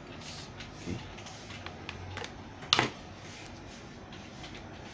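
Faint handling and rustling noises over a steady low hum, with a few light clicks and one sharp click a little under three seconds in.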